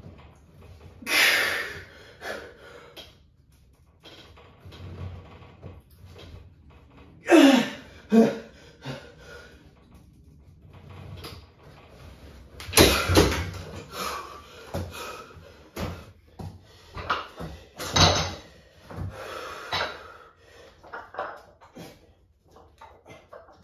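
A man straining under heavy dumbbells: forceful exhales and one groan that falls in pitch about seven seconds in. Scattered knocks and clanks come from the weights being moved and set down.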